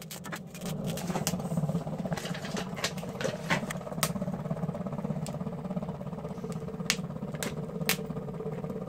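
A steady low drone runs throughout, with scattered sharp clicks and clinks as a tin can of candle wax is handled and set down on the metal top of a wood burner.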